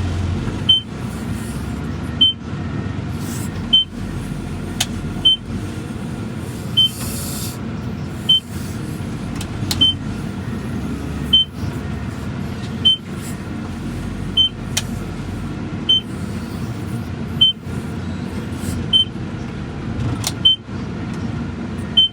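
Skid steer engine running steadily, with a short high-pitched warning beep sounding about every second and a half.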